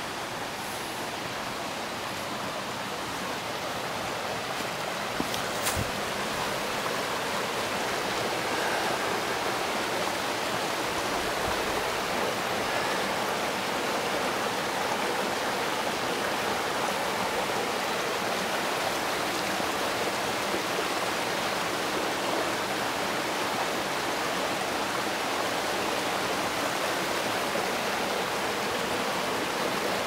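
Shallow mountain stream running over rocks in a valley, a steady babbling rush of water that grows a little louder over the first several seconds. A single brief knock sounds about six seconds in.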